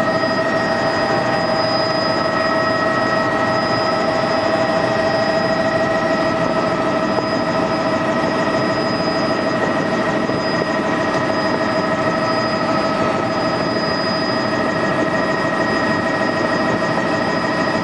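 Sightseeing helicopter in flight: a steady, loud drone with several steady high whining tones over it.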